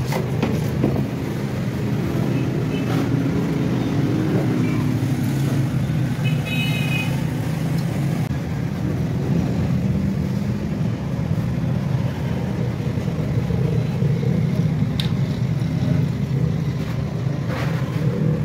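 An engine running steadily with a low, even rumble, and a few faint metallic clicks of engine parts being handled.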